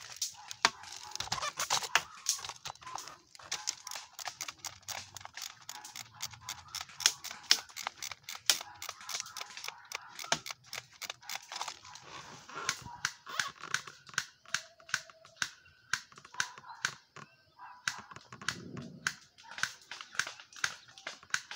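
Airsoft guns firing: many sharp clicking shots, scattered singly and in short quick strings.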